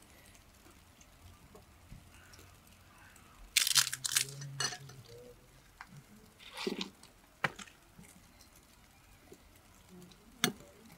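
Short bursts of crinkling and rustling, about four seconds in and again near seven seconds, with a couple of sharp clicks later on.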